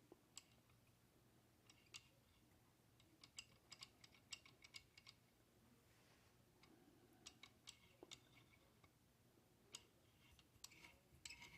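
Faint, scattered small clicks and taps of screws and small parts being handled while a variac is put back together, in clusters over a faint low hum.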